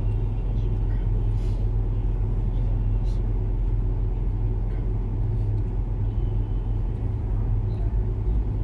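Steady low electrical hum with a rumble beneath it, heard through the mosque's microphone and sound system while nobody speaks.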